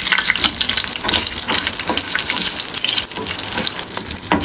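Curry leaves and whole dried red chillies sizzling and crackling in hot oil for a tempering (baghar). A spatula stirs them through the oil near the end.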